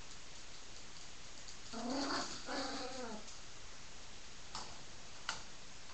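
Small dog vocalizing twice in quick succession about two seconds in, two short pitched calls that bend in pitch. Two sharp clicks follow near the end.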